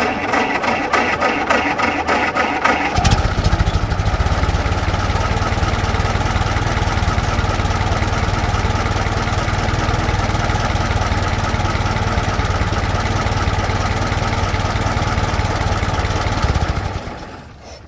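Old car's starter cranking the engine in quick rhythmic strokes for about three seconds, then the engine catches and runs steadily, fading out near the end.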